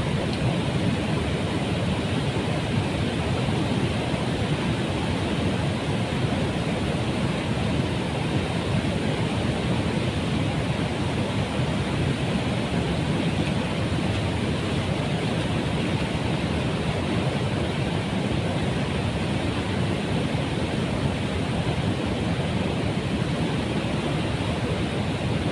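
Steady rush of water pouring over a river weir, an even roar with no breaks.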